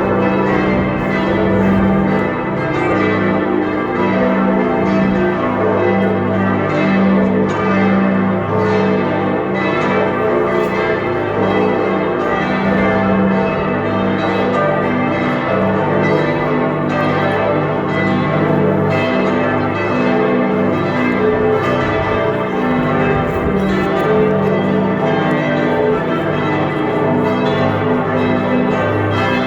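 The bells of Florence Cathedral and Giotto's Campanile pealing together, many bells struck over one another in continuous ringing with a steady low hum underneath.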